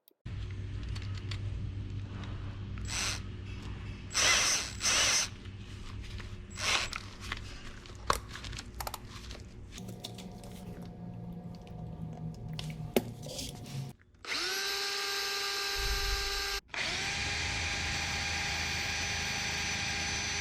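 Power drill boring into a steel wheel stud through a broken lug nut. For the first fourteen seconds it runs unevenly, with two loud surges as the bit bites. It then runs at full speed with a steady high whine, stopping briefly and starting again.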